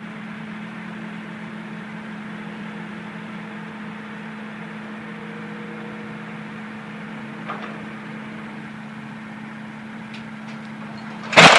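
A steady mechanical hum with a constant low tone. Near the end comes one sudden loud crash as the steel lattice transmission pylon that is being pulled over comes down.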